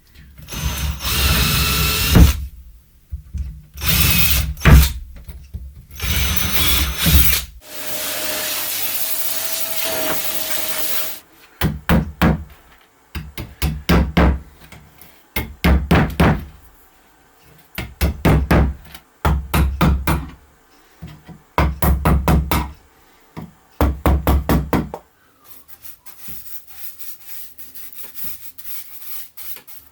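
Power drill boring into wood, enlarging old screw holes in a wooden sun-shade frame: several short runs, then a steady run of about three seconds, followed by a string of short stop-start bursts with rapid clicking, and quieter handling at the end.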